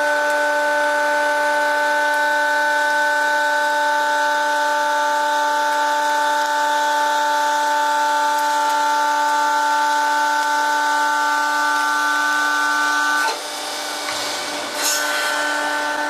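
Industrial machine running with a steady, loud whine of several pitched tones over a hiss. The whine cuts out about thirteen seconds in, and there is a sharp click before it comes back near the end.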